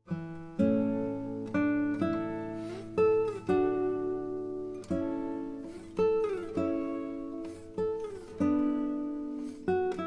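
Background music: an acoustic guitar picking single notes and chords, each ringing and dying away, with a few notes sliding down in pitch.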